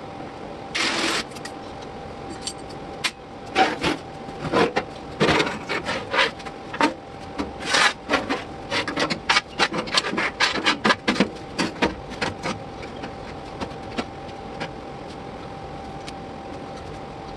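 Hand work on sheet-metal body parts: an irregular run of sharp taps, clicks and short scraping strokes that thins out about twelve seconds in, over a faint steady hum.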